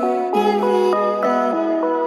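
Background music: a melody of short, evenly paced notes over held lower tones.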